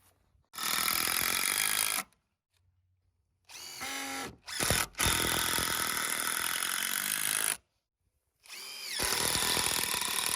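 Power drill driving screws into wood: three runs of a few seconds each, the motor whine climbing as each run starts.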